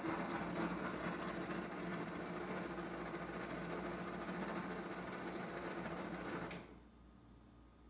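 Electric motor drive of a motorised pull-out trash-can drawer whirring steadily as it pushes the drawer open, then stopping with a click about six and a half seconds in.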